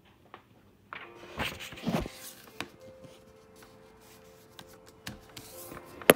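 Handling noise as a phone camera is picked up and moved: irregular rustles and knocks, ending in one sharp click near the end, the loudest sound.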